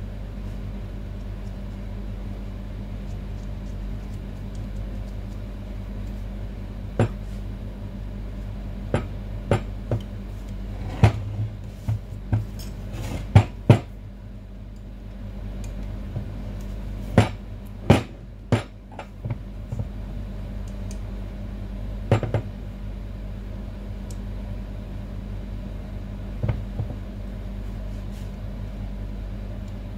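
Metal tools clinking and knocking against a barber chair's hydraulic lift cylinder as it is worked on by hand: irregular sharp strikes, several in quick succession in the first half, then scattered single knocks. A steady low hum runs underneath.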